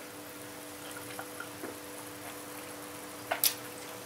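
A man drinking from a pint glass against a low steady hum: faint small sounds and ticks, then two short sharp sounds a little after three seconds in.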